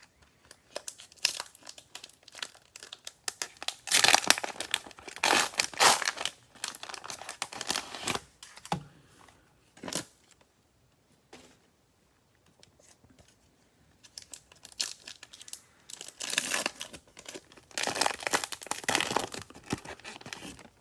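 Cellophane wrapper of a Mosaic football cello pack of trading cards being torn open and crinkled by hand, in two bouts with a short lull between.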